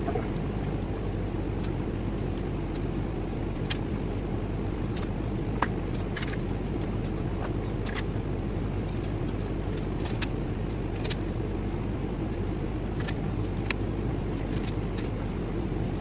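Steady low rumble, with scattered light clicks and scrapes from copper winding wires being pulled out of an electric motor's stator.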